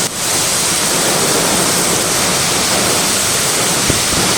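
Severe thunderstorm wind gusts driving rain, a steady loud rushing roar, with a faint knock near the end.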